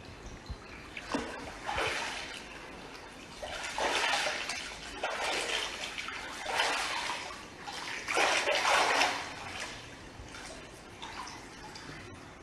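Water splashing and rushing in irregular surges, several louder swells of about a second each over a steady wash of water noise.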